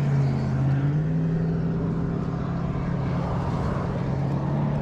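Sport motorcycle engine idling steadily, its pitch rising slightly about a second in.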